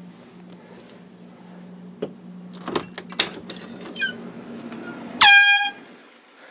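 A small handheld can air horn gives one short, loud blast about five seconds in. Its pitch drops sharply at the start and then holds steady for about half a second. Before it there is a steady low hum and a few soft clicks.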